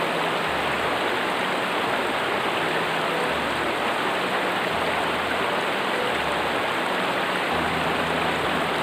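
Steady rushing noise of running water, even throughout, with a low hum coming and going underneath.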